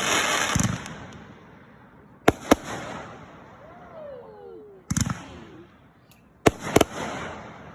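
Fireworks shells bursting: three pairs of sharp bangs spaced a couple of seconds apart, with a crackling hiss fading away after the burst at the start.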